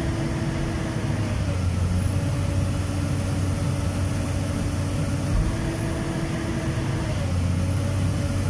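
Komatsu PC220-7 excavator's six-cylinder diesel engine running steadily at high throttle while its hydraulic pump is loaded for a pressure test. Its note dips slightly about a second and a half in as the pump pressure climbs to relief, and rises again near the end.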